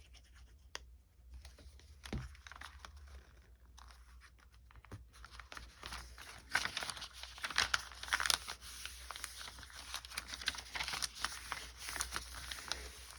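Paper rustling and crinkling as small pieces of paper are handled: a few scattered light taps, then busier, denser crinkling from about halfway through.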